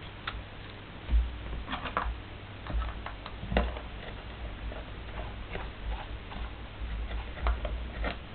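Plunger tea press (French press) being reassembled by hand: irregular light clicks and taps of its metal filter parts and plunger, with a few dull knocks from the handling.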